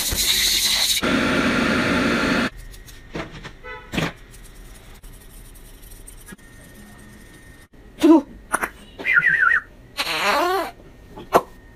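A jet of water hissing loudly as it runs onto a small wet rodent for about two and a half seconds. Then come quieter scattered clicks, and in the last few seconds several short squeaky sounds that slide up and down in pitch.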